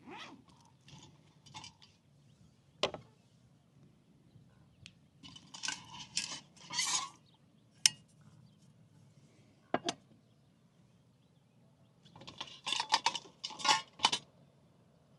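Camp cooking gear being handled and set down: bursts of rustling and clattering, with a few single sharp knocks and clinks.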